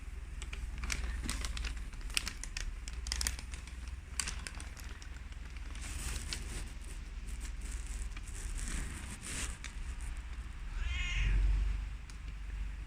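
Rustling and crackling with a low rumble underneath, and a short wavering kitten meow near the end.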